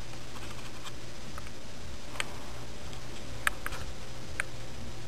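Steady low hum with several short, sharp clicks scattered through it, the loudest about three and a half seconds in: handling noise from a handheld camera being moved.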